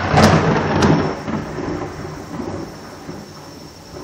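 A close thunderclap: a sharp crack, a second crack just under a second later, then rumbling that fades over the next couple of seconds, with rain falling throughout.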